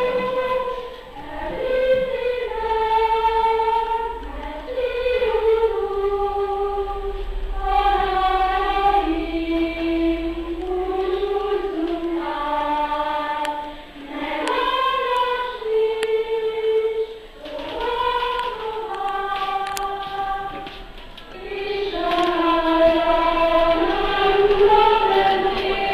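A choir of high voices singing a melody in unison, holding long notes in phrases of a few seconds with short breaks for breath between them.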